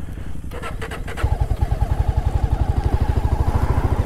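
Motorcycle engine idling with an even, pulsing beat that grows louder about a second in.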